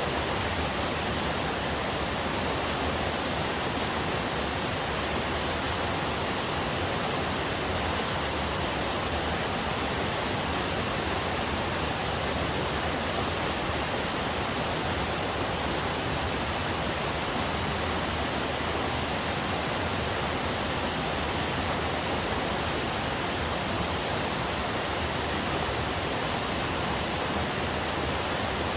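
Small waterfall on a forest river: a steady, even rush of falling and flowing water.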